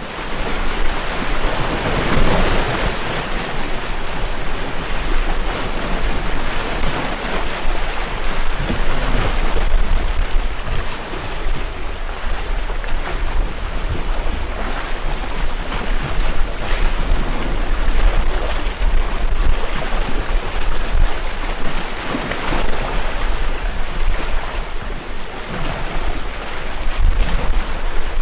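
Adriatic sea waves breaking and washing over a rocky shore, a steady surf that swells every several seconds, with wind buffeting the microphone.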